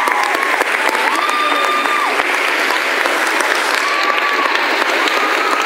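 Theatre audience applauding steadily, a dense unbroken clapping, with a few long held calls from the crowd above it.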